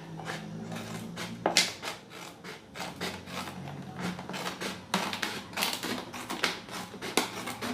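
A plastic PET bottle being handled, its thin plastic clicking and crackling in irregular taps.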